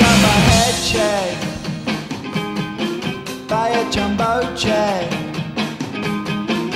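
Rock goal song played in a hockey arena: a steady drum beat with sung or shouted vocals that slide up and down in pitch. A louder, denser sustained sound thins out in the first half-second.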